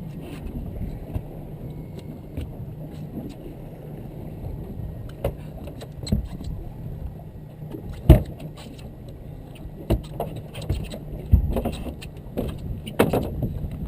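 Boat engine running steadily at low revs, with scattered knocks and clatter of gear on the deck. The loudest knock comes about eight seconds in.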